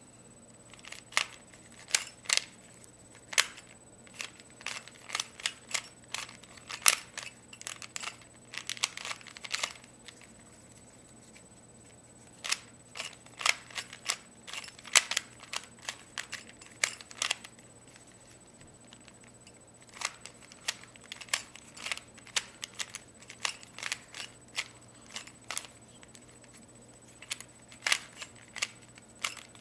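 A 3×3 Rubik's cube being solved by hand: bursts of quick plastic clicks as its layers are turned, broken by pauses of a second or two between move sequences.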